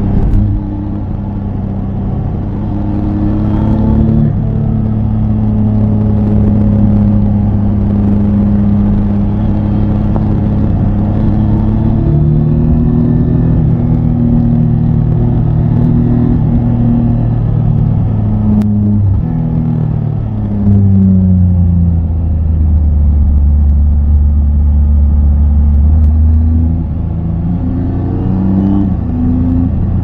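Triumph Tiger 800 XCA's three-cylinder engine running while riding, its note rising and falling with throttle and gear changes. It drops to a low, steady note a little after twenty seconds, then climbs again near the end.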